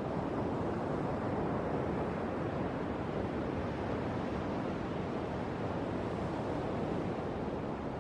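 Ocean surf breaking and washing onto a sandy beach, a steady rushing noise.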